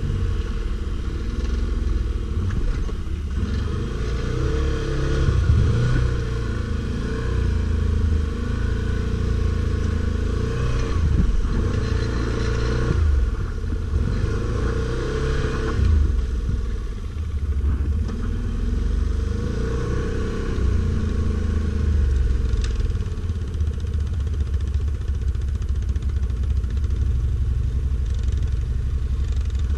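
Stels Guepard 850 ATV engine running under load off-road, the revs rising and falling several times as it is throttled on and off.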